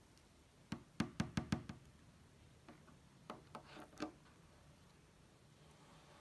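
Fingertip knocking on the clear plastic bubble window of a pet-carrier backpack: five quick taps within about a second, then a few lighter taps over the next couple of seconds.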